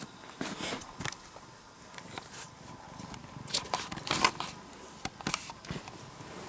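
Irregular crackling, rustling and clicking of a cat brushing and rubbing against the camera, loudest about four seconds in.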